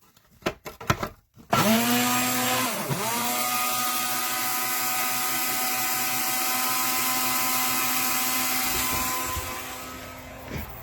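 An electric appliance's motor running on power from a pure sine wave inverter through an RV outlet: a few clicks as it is switched on, then it spins up with a rising whine, dips briefly and recovers, and runs steadily with a high whine and hiss before winding down near the end. It runs normally on the inverter's output.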